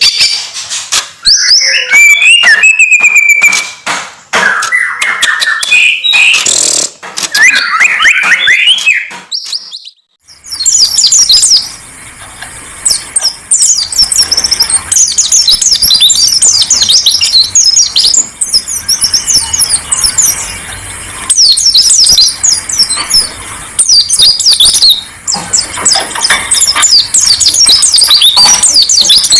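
Songbird training-song recording: varied whistled phrases with sharp clicks at first, then, after a brief break about a third of the way in, a dense run of high, rapid chirps and trills from a different recording.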